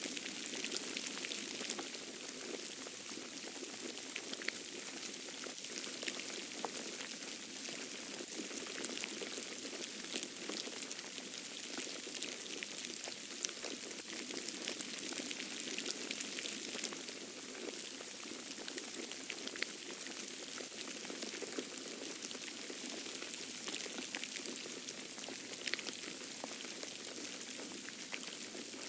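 Steady hiss of a snowstorm, with many fine, irregular ticks of falling snow.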